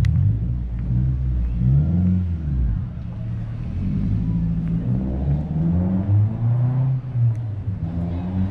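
A motor vehicle's engine accelerating close by, its pitch rising several times as it revs up.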